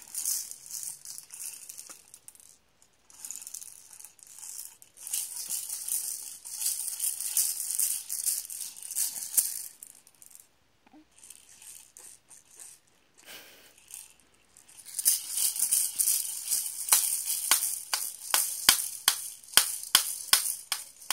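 Clear plastic toy rattle balls shaken by a baby: bursts of rattling in fits and starts with a short pause about ten seconds in, then a brisker run of sharp rattling clicks, about two or three a second, over the last six seconds.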